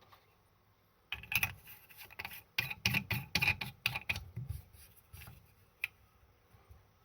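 A quick, irregular run of sharp clicks and light knocks from hard objects being handled, starting about a second in and easing off after about five seconds, with one last click near the end.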